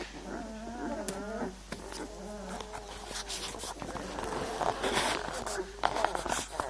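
Young puppies whimpering and squeaking in thin, wavering calls, with scuffling and clicks as they crawl over one another.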